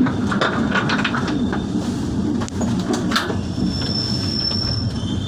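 Passenger train running along the track, heard from its rear end: a steady rumble of wheels on rail with several sharp clicks in the first second and another a little after three seconds. A thin high squeal, about a second long, sounds around four seconds in.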